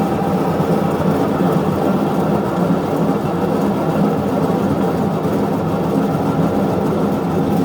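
Westinghouse washing machine spinning its basket, a loud, steady mechanical drone with several held tones that sounds horrible: the noise of a worn transmission.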